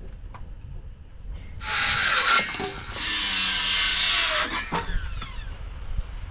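A power tool runs in two bursts of about a second each, back to back, then winds down with a falling pitch. A few light knocks come before it.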